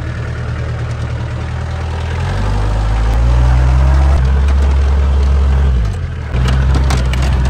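Off-road jeep's engine running as it drives along a rough grassy track, heard from on board. The engine grows louder and deeper a couple of seconds in, drops off briefly about six seconds in, then picks up again.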